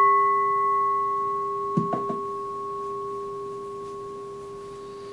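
Buddhist bowl bell ringing out after a single strike, a steady, several-pitched tone that slowly fades, marking the start of the closing dedication chant. A brief soft knock comes about two seconds in.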